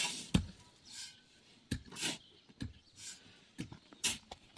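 Irregular scrapes and knocks of hand building work, a stroke every half second to a second.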